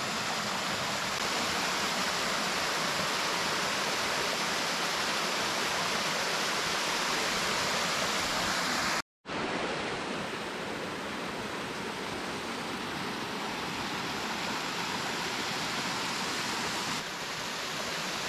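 Small waterfall cascading over rock ledges into a creek pool: a steady, even rush of falling water. It cuts out for a moment about halfway through, then resumes slightly softer.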